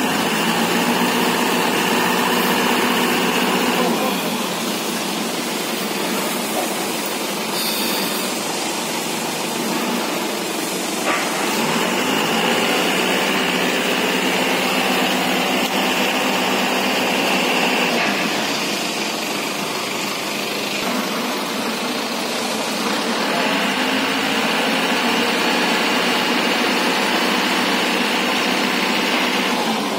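An engine running steadily at an even pitch, with its tone changing abruptly a few times.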